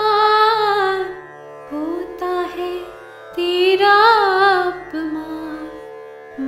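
A woman singing a Hindi Krishna bhajan with instrumental accompaniment: long, ornamented held notes at the start and again about three and a half seconds in, with quieter stretches between them over a steady sustained accompaniment.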